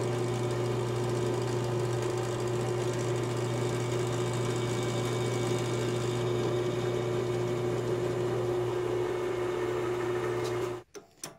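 Benchtop drill press motor running steadily while a small bit drills into an aluminum plate, a constant hum that cuts off suddenly near the end.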